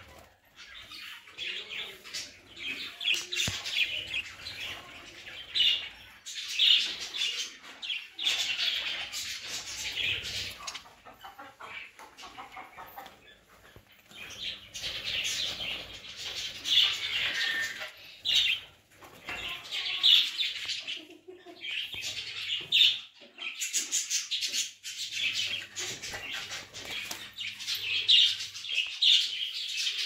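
A colony of budgerigars chattering and chirping continuously in an aviary, with wings flapping as birds flutter between perches.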